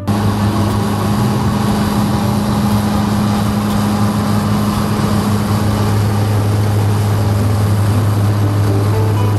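Steady, loud engine drone with a strong low hum, as of a vehicle running at constant speed; it cuts in suddenly at the start.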